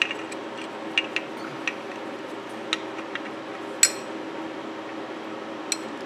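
Metal water heater elements clicking and clinking against each other as they are handled: a scattering of light, sharp knocks, the loudest a little under four seconds in, over a faint steady hum.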